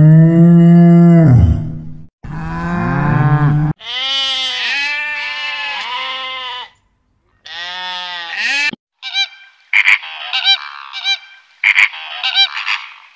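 A run of separate farm animal calls: a deep drawn-out call fading in the first second and a half, then several higher calls that rise and fall, and near the end a cluster of short, high-pitched calls with sharp clicks.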